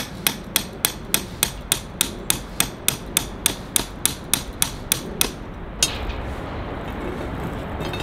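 A tent peg being hammered into the ground: quick, even hammer strikes, about three a second, with a last, slightly delayed strike about six seconds in.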